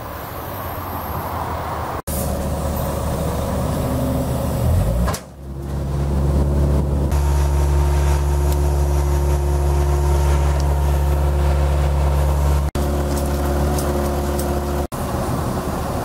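Heavy diesel machinery running steadily at a constant pitch. The sound is rougher and more noisy for the first few seconds, then settles into a steady engine note after about five seconds, with a few very brief dropouts.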